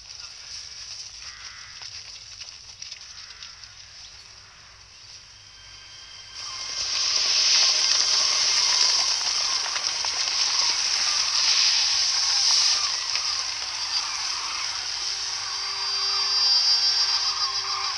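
Film sound effects: a faint windy hush, then from about six seconds in a loud rushing hiss of wind and dust with a large flock of birds calling and flapping.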